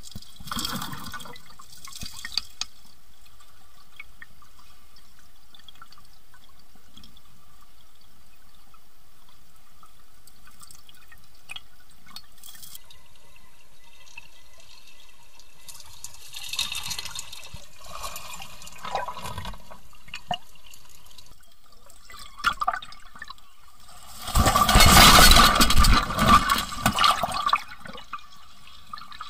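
Shallow stream water running over a rocky bed, heard through a half-submerged camera, with small splashes. About 24 seconds in comes a loud burst of heavy splashing and churning that lasts a few seconds and stirs up silt.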